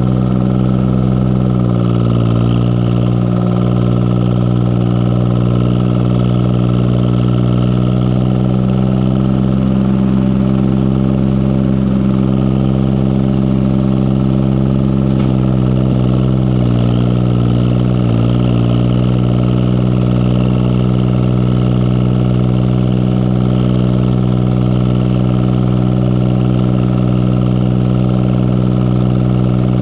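Farm tractor engine running steadily under load while pulling a bush hog rotary cutter. Its pitch sags briefly about two seconds in and again twice between sixteen and eighteen seconds in.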